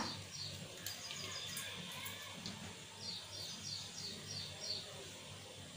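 A small bird chirping in the background: a quick run of about seven short, high, falling chirps a few seconds in, over faint low background hum.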